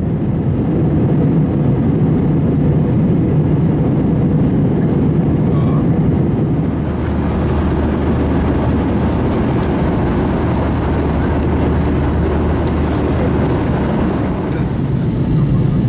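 Airbus A321-200 cabin noise in flight: a steady roar of engines and rushing air, mostly low-pitched. About seven seconds in the sound shifts and a steady low hum joins in.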